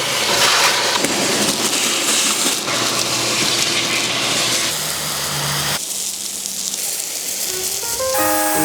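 A loud, steady rushing hiss that changes abruptly a few times. Background music with piano notes comes in near the end.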